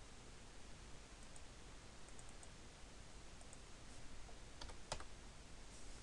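Faint computer mouse clicks and keystrokes while editing values on a PC: a few light ticks spread out, then a short cluster with one sharper click about five seconds in, over a steady low hiss.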